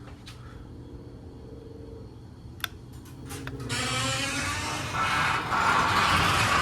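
Chamberlain belt-drive garage door opener: a low hum, then a few sharp clicks a little under three seconds in, after which the opener's motor and the door rolling down its track grow loud and run steadily, closing the door.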